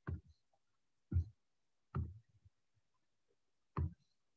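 Four short, dull knocks at uneven intervals, from a pen or stylus on the writing surface as the whiteboard is written on, with near silence between them.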